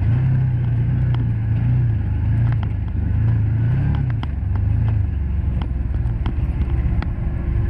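Can-Am Commander 1000 side-by-side's V-twin engine running while driving, its pitch rising and falling with the throttle. Many short sharp ticks and knocks are scattered through it.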